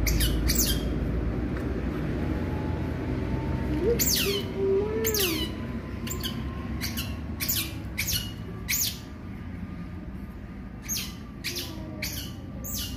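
Young otter chirping: about a dozen short, very high calls that each drop sharply in pitch, at uneven intervals.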